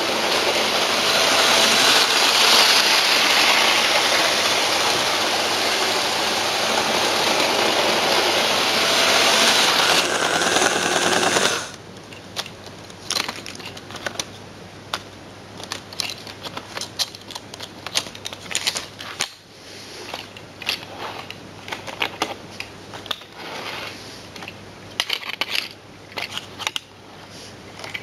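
Model train running on its track out of sight, a steady hissing whir of motor and wheels that cuts off abruptly about eleven seconds in. After that come scattered small clicks and ticks.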